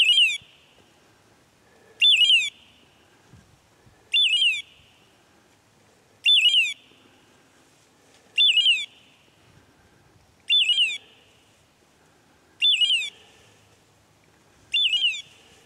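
A bird dog's electronic beeper collar sounding in point mode. It gives a short burst of quick falling chirps about every two seconds, eight times, the signal that the Brittany spaniel is holding point.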